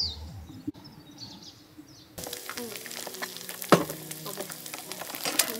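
An egg frying in oil in a nonstick pan on a portable gas stove: a steady sizzle full of crackles and spits that starts suddenly about two seconds in, with one loud pop near the middle.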